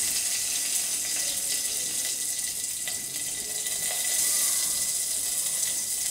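Ghee sizzling steadily in an aluminium pot with whole spices and curry leaves frying in it: the tempering (tadka) for a dal.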